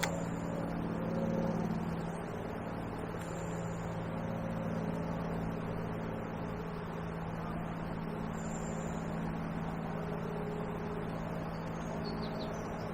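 Boat engine running at a steady low hum.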